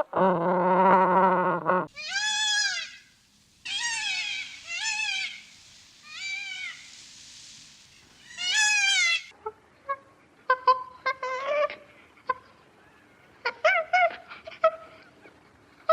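A cat meowing repeatedly: five drawn-out meows that rise and then fall in pitch, after a lower, longer call at the start. In the last few seconds come many short, high chirping calls.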